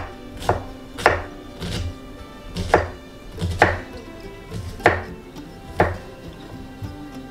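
Chef's knife chopping onion on a wooden cutting board: about eight sharp knocks of the blade on the board at an uneven pace, roughly one every half-second to second.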